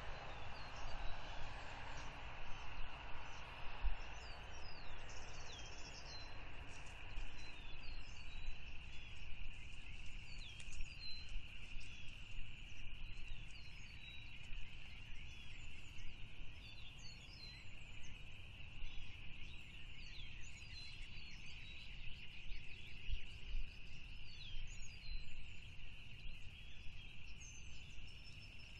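Outdoor ambience of small birds chirping in the distance, many short quick calls sliding up and down. Under them is a steady high-pitched hum and a low rumble. A broader rushing noise fades out over the first few seconds.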